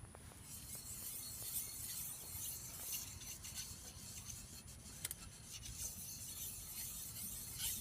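Faint rubbing and rasping with light scattered clicks and ticks.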